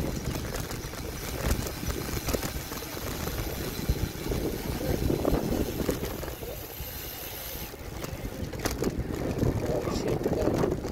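Wind buffeting a phone's microphone while cycling, a rough low rumble that eases for a moment past the middle.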